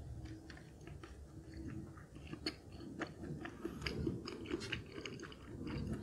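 Close-up chewing of a mouthful of dumpling, a steady run of small, irregular mouth clicks and smacks.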